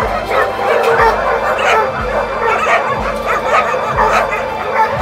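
Dogs barking and yelping, several voices overlapping, over background music with a steady low beat about once a second.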